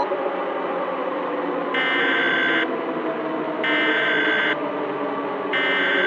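An electronic alarm buzzer sounding three harsh blasts, each just under a second long and about two seconds apart, over a steady low drone.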